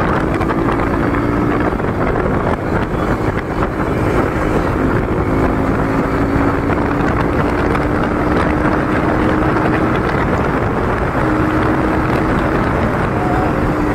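Bajaj Pulsar NS200's single-cylinder engine running through a custom aftermarket exhaust while riding, with wind buffeting the microphone. The engine note holds fairly steady, dipping slightly midway and rising again near the end.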